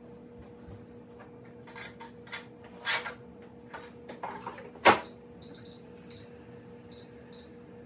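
A few knocks and clatters, the loudest about five seconds in, then a run of short, high electronic beeps, singly and in pairs, from an air fryer's touch control panel as its buttons are pressed.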